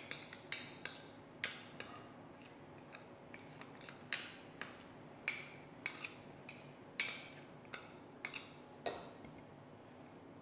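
Metal spoon clinking and tapping against ceramic and a container in irregular sharp clicks while sticky Korean chili paste (gochujang) is scooped and scraped off into a bowl. The clicks stop near the end.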